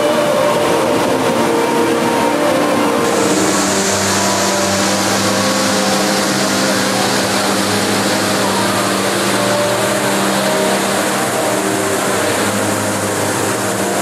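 Rain Vortex indoor waterfall: a steady, loud rush of water falling into its pool, with faint steady low tones underneath. About 3 s in the rush turns brighter and a low hum steps in.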